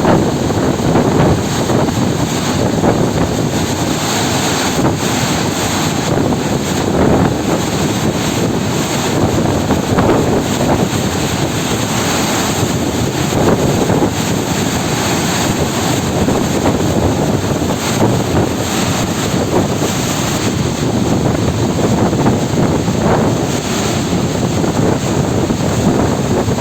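Steady, loud rush of water pouring from the opened spillway gates of the Srisailam dam, with wind buffeting the microphone.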